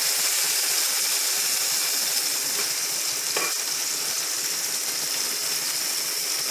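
Diced potatoes sizzling steadily as they fry in a little oil in a pan, with a flat spatula stirring through them. One short click about halfway through.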